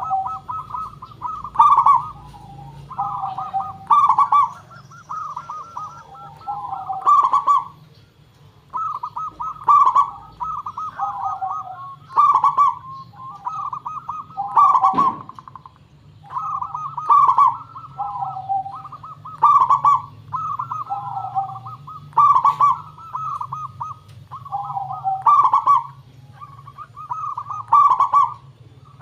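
Zebra dove (perkutut) cooing: a bubbling, warbling phrase repeated about every two seconds, over a steady low hum.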